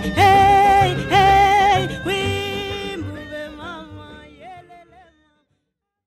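Music with long held melodic notes over a low beat, fading out about five seconds in.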